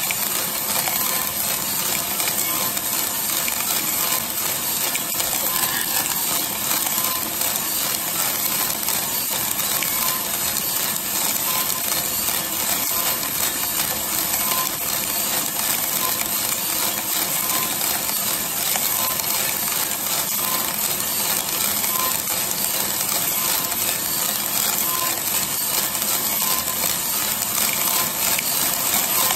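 600 g of green coffee beans clattering and rattling continuously as they tumble in a 3 kg Mill City roaster's rotating drum, turning at about 40 rpm. The sound is steady throughout.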